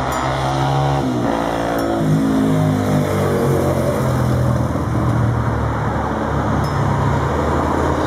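A motor vehicle engine running steadily and loudly, its pitch shifting up and down a few times in the first three seconds, then holding.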